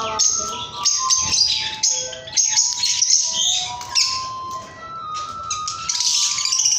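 Indian ringneck parrot squawking and chattering in harsh high bursts, over background music with held notes.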